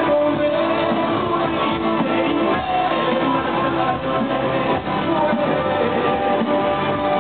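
A rock band playing live, with guitar to the fore and no singing. It is picked up by a photo camera's built-in microphone, so it sounds muffled and dull, with the treble cut off.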